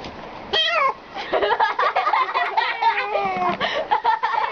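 Cat meowing: one falling meow about half a second in, then a run of quick, choppy calls that rise and fall in pitch.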